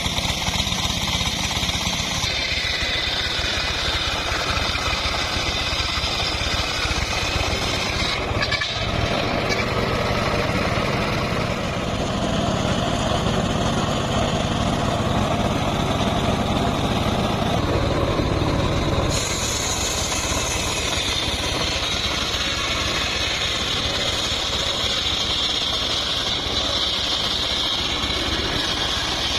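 Engine-driven homemade circular sawmill running steadily, its sound shifting abruptly a few times.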